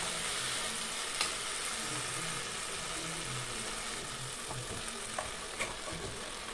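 Okra and fried chicken sizzling in a pot on the stove, a steady hiss, with a few light clicks as a spoon stirs against the pot.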